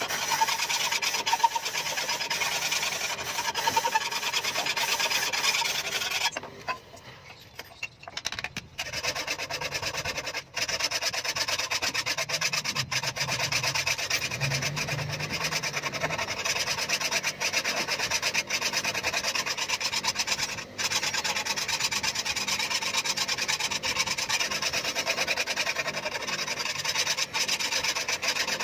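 A long steel knife blade being sharpened by hand, a grey sharpening tool scraped rapidly back and forth along the edge in continuous strokes. The scraping breaks off for about two seconds roughly six seconds in, then resumes.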